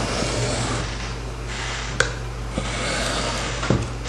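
Steel tanto blade of a Cold Steel Recon 1 knife drawn across a coarse diamond hone in even strokes with light pressure: a scraping hiss, with a few light clicks.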